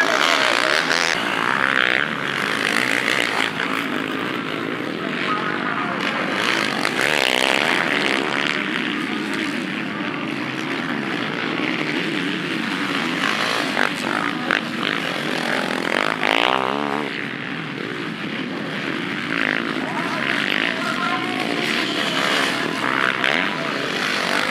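Several motocross bikes racing on a dirt track, their engines revving up and down as riders accelerate past and back off, with pitch rising and falling repeatedly.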